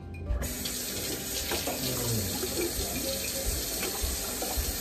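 Kitchen faucet running into the sink as a clear container is rinsed under the stream. The water comes on about half a second in and runs steadily.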